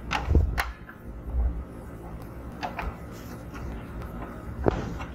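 Plastic casing of a Godex BP700 thermal label printer being handled and turned over: scattered sharp clicks and knocks, with a couple of low thumps, the sharpest knock near the end.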